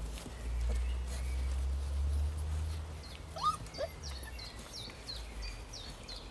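Polish hound puppies give two short rising yelps about three and a half seconds in, after a low rumble in the first half. A bird chirps repeatedly in the background, with quick falling notes about twice a second in the second half.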